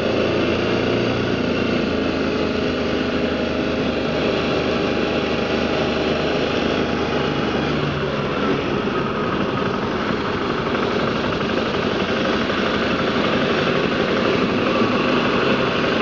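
BMW G650GS motorcycle's single-cylinder engine running while riding in city traffic, mixed with steady wind and road noise.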